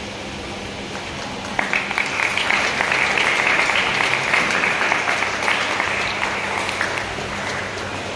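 Audience applauding: a crowd of hands clapping that starts about one and a half seconds in and fades away near the end, over a steady low hum.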